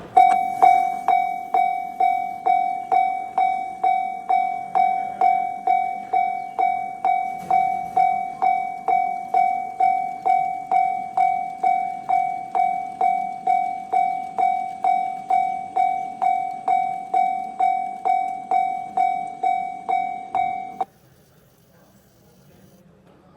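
Japanese-style railroad crossing warning bell ringing its electronic ding on one pitch, a little over two strokes a second, then cutting off suddenly about three seconds before the end.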